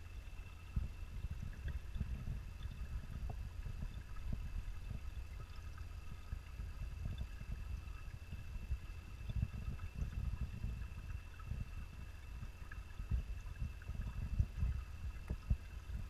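Underwater sound picked up by a GoPro Hero 3 Black sealed in its waterproof housing and submerged in a pond: a low, fluctuating rumble of water moving around the housing, with a thin steady high whine and a few faint scattered ticks.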